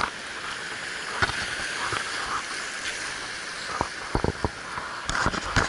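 Seawater washing over rocks at the shoreline, a steady rush of surf, with a few short knocks about two-thirds of the way through and again near the end.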